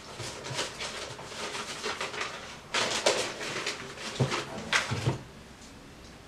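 Irregular scraping and rustling strokes with a few short knocks: hands handling things at the foot of a blackboard.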